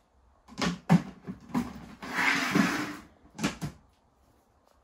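Plastic lid being fitted back onto a plastic bucket: a few short knocks and clatters, a rustling scrape lasting about a second from two seconds in, and two more knocks a second later.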